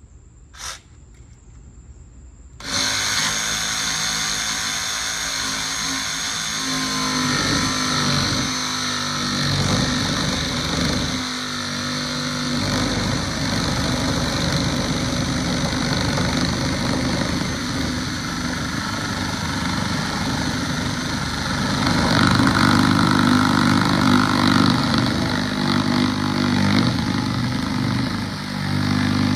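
Cordless DeWalt jigsaw cutting through a sheet of plywood: it starts up about three seconds in and runs steadily with a high whine, getting louder for a few seconds in the second half.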